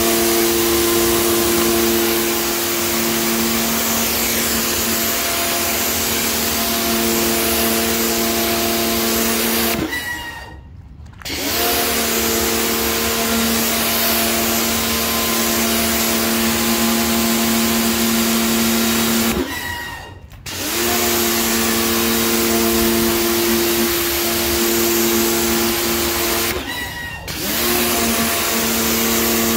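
Pressure washer's motor and pump running steadily with a hum and the hiss of the water jet on the tiles. It cuts out three times for about a second and spins back up to speed, as happens when the trigger is let go and squeezed again.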